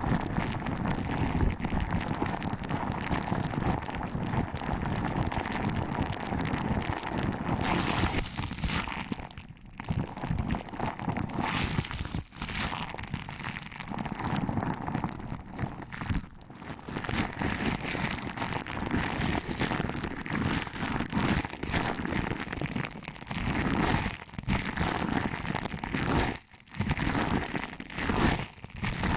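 Close-up crinkly rustling of fingers pinching and rubbing the ears of an ASMR microphone for ear-massage sounds. It runs continuously, with a few brief pauses.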